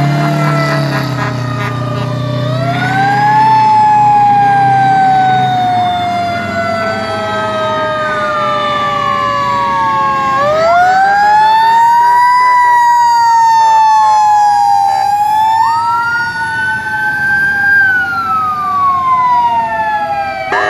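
Sirens on passing fire trucks and emergency vehicles, two or three wailing at once with overlapping pitches that rise quickly and fall slowly. A heavy truck engine rumbles by during the first few seconds.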